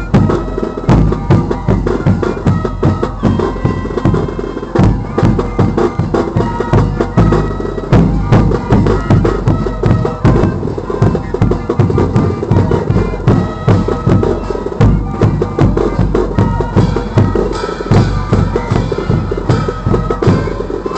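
Andean carnival band music: reedy wind instruments playing a held, repeating melody over a steady drumbeat, for dancing.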